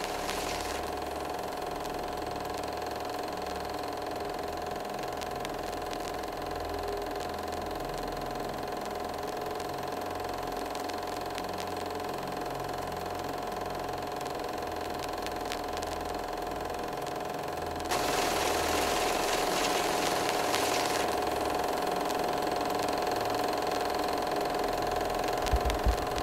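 A steady mechanical running sound: a machine-like clatter over a humming tone. About eighteen seconds in it grows louder and noisier for a few seconds, and near the end there are a couple of short knocks.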